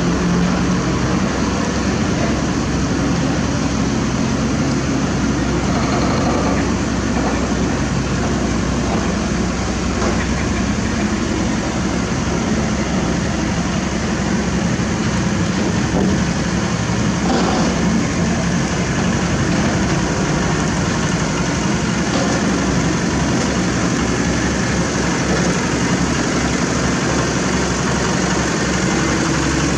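Heavy diesel engine of construction equipment running steadily at a low, even speed.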